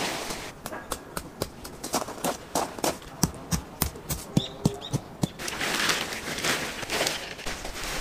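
A run of sharp clicks and knocks, some with a short metallic ring, as metal tent poles and a canvas tent are handled on gravel. From about five seconds in, heavy canvas rustles and drags, and gravel crunches under foot.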